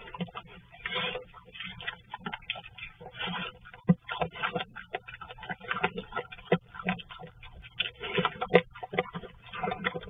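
Black bear eating birdseed close to the microphone: a run of irregular crunches, clicks and smacks as it chews and noses through the seed, a few of them sharper than the rest.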